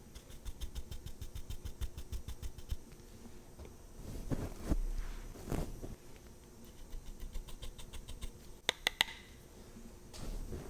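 Makeup tools and containers handled: a quick run of light taps, two soft brushing swishes, more faint tapping, then three sharp clicks about nine seconds in.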